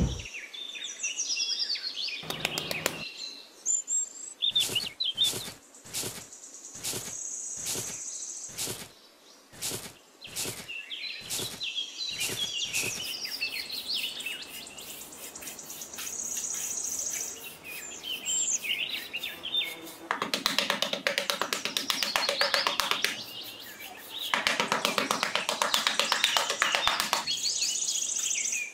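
A small hand trowel digging and scraping sand. Separate strokes come about twice a second early on, then two longer spells of quick back-and-forth scraping. Birds chirp in the background throughout.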